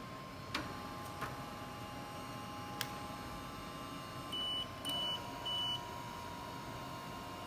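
A QiDi X-One 2 3D printer gives three short high beeps about half a second apart, over a steady faint electronic whine from the printer, with a few sharp clicks before the beeps.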